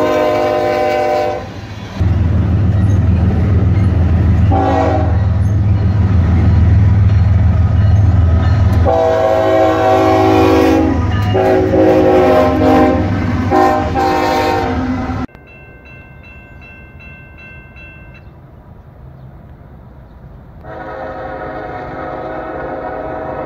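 Norfolk Southern diesel freight locomotives sound their multi-chime air horns in several long blasts while passing close by, over the deep rumble of the engines and rolling train. After an abrupt cut a grade-crossing bell rings steadily for a few seconds, and near the end another train's horn sounds at a quieter level.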